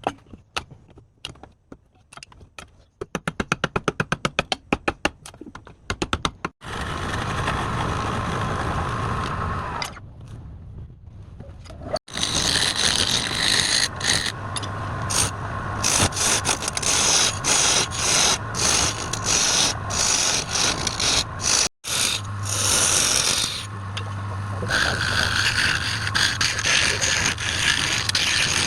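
Wood lathe turning: a hand tool scraping and cutting into spinning wood, in several short stretches that cut off abruptly. A few seconds in there is a run of rapid, evenly spaced clicks.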